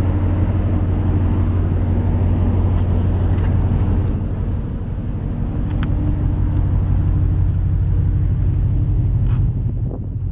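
Steady low rumble of wind buffeting the microphone on the open bridge wing of a container ship, with a faint steady hum of the ship's machinery underneath.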